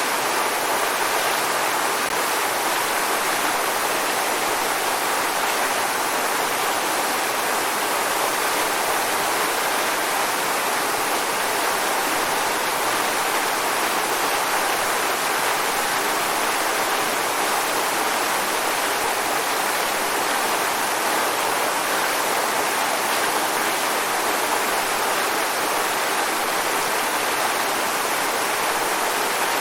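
Waterfall: water falling and rushing in a steady, unbroken hiss with no distinct splashes.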